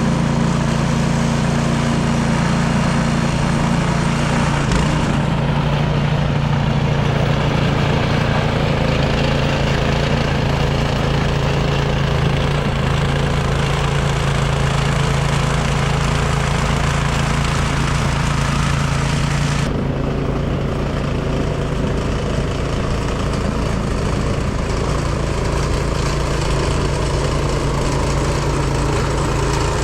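Craftsman snowblower engine running steadily under load, its sound getting duller about twenty seconds in.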